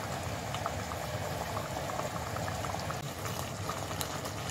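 Beef caldereta stew simmering in a pot, bubbling steadily with many small pops.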